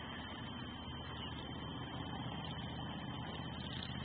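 Steady low mechanical hum and rumble with a constant thin high whine above it; no eagle calls stand out.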